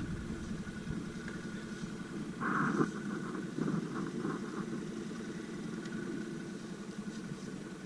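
ATV engine idling steadily, with a brief louder burst about two and a half seconds in.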